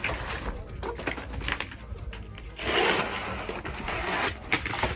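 Corrugated cardboard sheets being handled and folded on concrete, rustling and clicking. Just before the middle comes a longer rough scrape of cardboard, lasting under two seconds.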